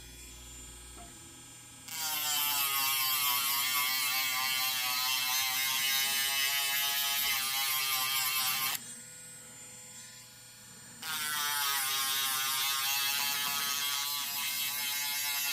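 Small handheld electric motor tool buzzing in two runs of several seconds with a short pause between; its pitch sags slightly as each run begins, then holds steady.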